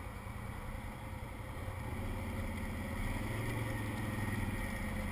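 Can-Am ATV engine idling with a steady low beat, swelling slightly about two seconds in.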